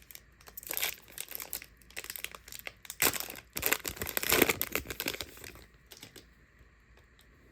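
Plastic wrapping of a trading-card blaster box crinkling and tearing as it is ripped open, in several irregular bursts, the loudest about three to five seconds in, dying down near the end.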